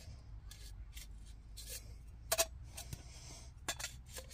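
Thin metal stove flue pipe sections clinking and tapping against one another as they are handled: a string of light, separate clinks, the sharpest about halfway through with a brief ring.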